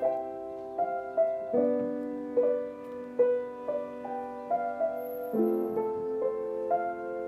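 Slow solo piano music: single notes and held chords in the middle register, each note ringing on and fading.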